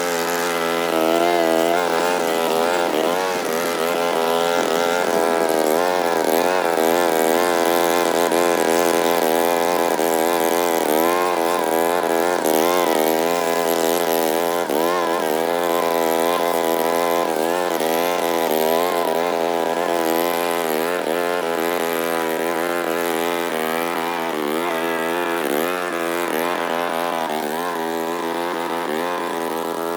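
Lawn mower's small petrol engine running steadily while cutting grass, its pitch rising and dipping as the load changes.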